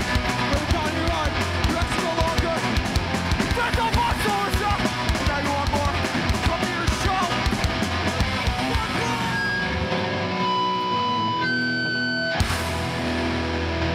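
Hardcore punk band playing live: fast drums with distorted electric guitars, bass and shouted vocals. The drums drop out about nine seconds in, leaving only high ringing guitar tones. A sharp hit near the end brings in a heavy sustained distorted chord.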